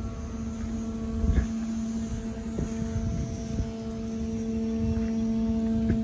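Wind buffeting the microphone in uneven low gusts, over a steady low hum.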